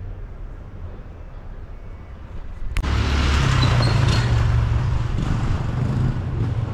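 A motor vehicle's engine running close by, with a low rumble that turns much louder just under three seconds in, right after a sharp click.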